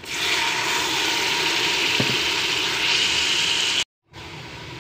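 Water hitting hot oil and fried onion-garlic masala in a pot, setting off a loud, steady sizzle. Near the end it cuts off abruptly, and a quieter sizzle carries on.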